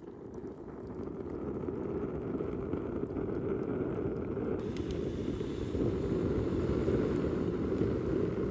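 Wood fire burning with a steady low rumble that grows louder over the first few seconds, with faint crackles from about halfway through.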